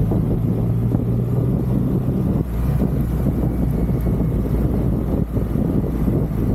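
Triumph Rocket 3's three-cylinder engine running, with wind noise on the microphone; its steady low note drops to a deeper pitch about two and a half seconds in.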